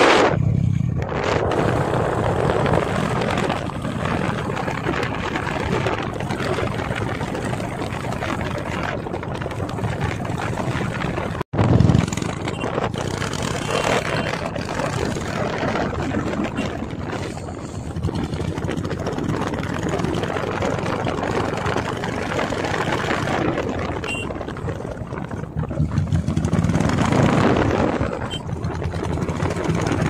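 Motorcycle engine running while riding, mixed with wind rushing over the microphone: a steady noisy drone that swells now and then and cuts out for an instant about eleven and a half seconds in.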